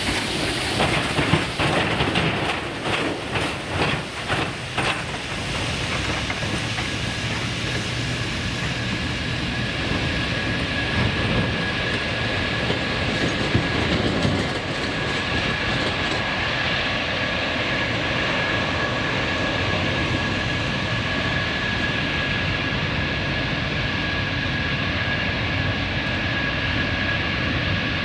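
Large jet aircraft's turbofan engines running with a steady rushing noise and a high whine. A quick run of knocks, about two a second, comes in the first five seconds.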